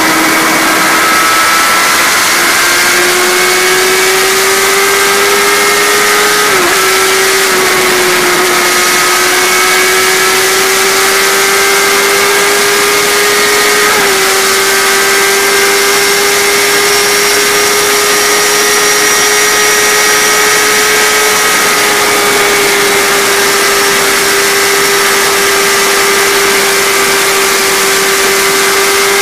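A vehicle engine held at high revs under hard acceleration, its pitch climbing slowly, with two brief dips about seven and fourteen seconds in like gear changes, over a steady rushing noise.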